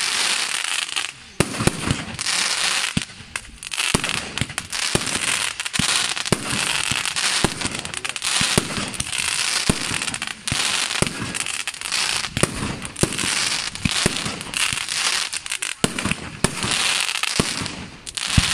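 Aerial fireworks display: shell bursts bang in quick, irregular succession over a dense, continuous crackle of white glitter stars.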